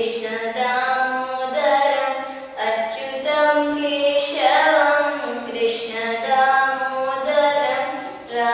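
A young girl singing solo, holding long notes and sliding between them in phrases of one to two seconds.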